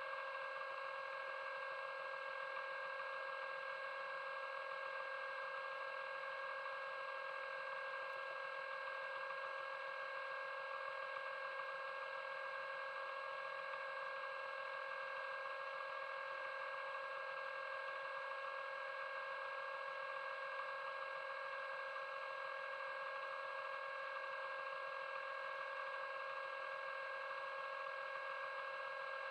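Underwater scooter (DPV) motor heard underwater, a steady high whine with an even pitch and no change in speed.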